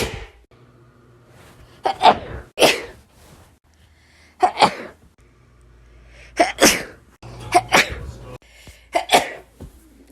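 A person sneezing over and over: about six sharp sneezes, several coming in quick pairs, with the background hum shifting between them as if separate sneezes were joined one after another.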